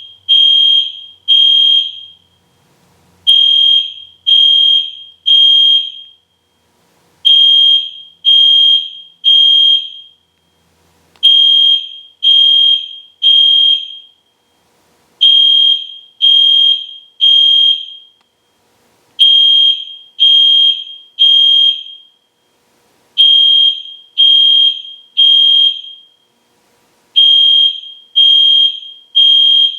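Loud EST Genesis fire alarm horn sounding at full volume in the temporal-three evacuation pattern: three short, high-pitched blasts, then a pause, repeating about every four seconds.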